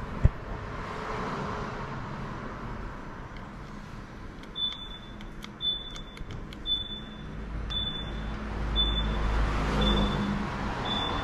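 A short, high electronic beep repeating about once a second, starting a few seconds in, over steady room noise, with a single sharp click just after the start.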